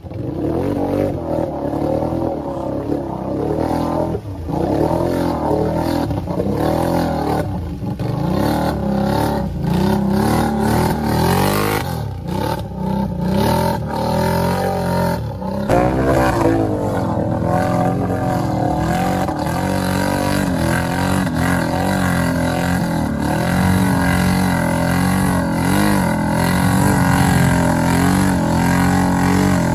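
Can-Am ATV V-twin engines revving hard while churning through mud, the pitch rising and falling constantly as the throttle is worked. The sound changes abruptly about halfway through.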